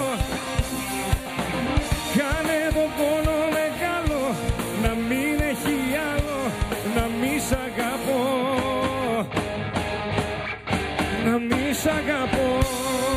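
Live rock band playing: a man singing over electric guitar and a drum kit, with drum hits on a steady beat.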